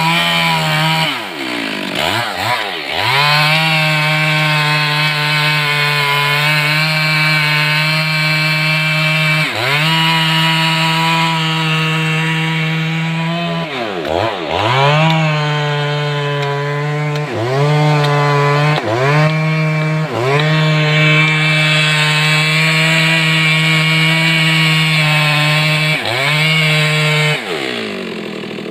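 Stihl MS 382 two-stroke chainsaw running at high revs, cutting through big wood; the engine note dips and recovers several times, then the revs fall away near the end.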